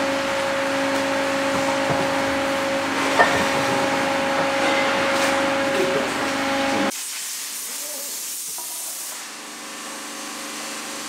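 A machine running with a steady hum and hiss, cut off abruptly about seven seconds in, followed by a quieter steady hum.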